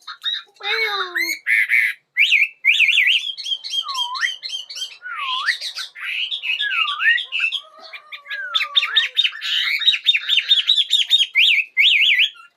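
Chinese hwamei singing a loud, varied song: swooping whistled notes that dip and rise again, mixed with rapid runs of repeated notes near the end.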